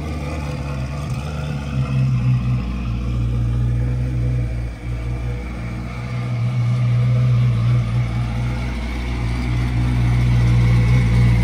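Twin-turbo C8 Corvette's V8 idling steadily.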